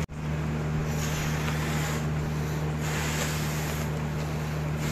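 Breaths blown into a rubber balloon to inflate it: about four airy gusts, each about a second long, over a steady low hum.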